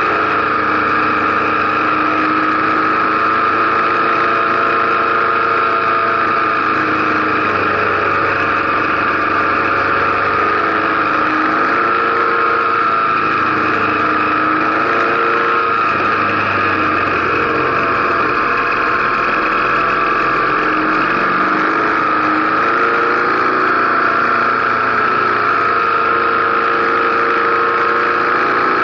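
Motorcycle engine running at low road speed on a climb, its pitch drifting slowly up and down with the throttle, under a steady high whine.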